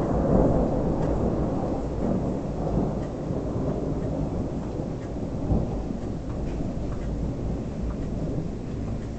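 Thunder rumbling, loudest right at the start and slowly dying away over several seconds, with rain falling during a weak thunderstorm.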